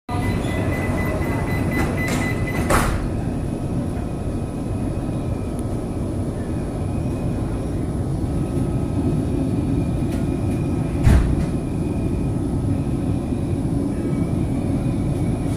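Interior of a CRRC Sifang B-type metro car on Qingdao Metro Line 11. A steady high door-warning tone sounds for about two seconds, then the sliding doors shut with a knock. The train pulls out of the station with a steady rumble, a sharp knock about eleven seconds in, and a faint motor whine as it picks up speed.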